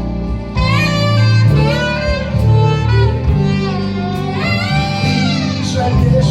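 Live folk-rock band playing an instrumental interlude: a wavering lead melody over steady bass and guitar accompaniment.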